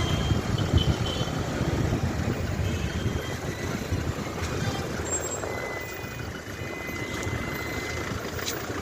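Street traffic: motor vehicles running by in a continuous low rumble, with a faint steady high tone held for a couple of seconds after the middle.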